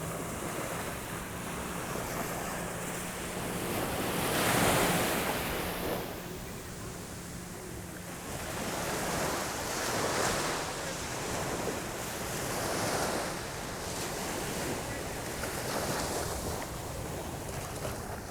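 Sea waves washing onto a beach, the surf swelling every few seconds over a steady hiss, with wind buffeting the microphone.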